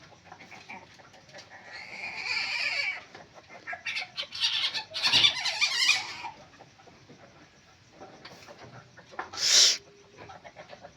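A civet calling in three harsh, hoarse bursts: one about two seconds in, a longer crackling one from about four to six seconds, and a short, loud one near the end.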